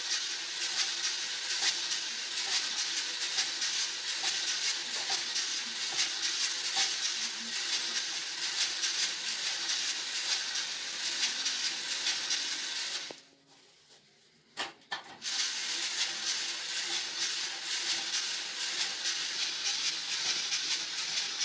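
Coffee beans rattling and hissing as they tumble in a hand-turned drum roaster over a wood-burning stove's fire. The sound is a steady dense rattle with fine ticks. About 13 seconds in it drops out for about two seconds, with a couple of clicks, then resumes.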